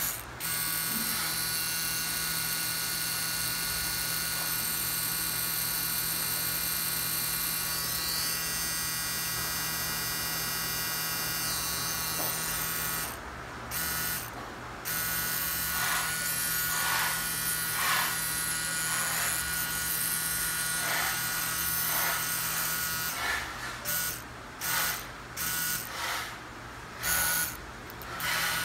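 CNC Q5 tattoo pen with a cartridge needle fitted, its motor buzzing steadily. The buzz cuts out twice briefly about halfway through, then runs again, and near the end it is switched on and off in several quick short bursts.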